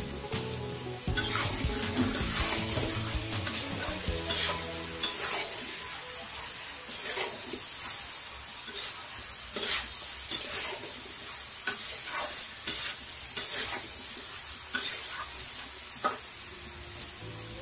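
A pan of vegetable and soybean curry sizzling as it is stirred, the utensil scraping and knocking against the pan about once a second.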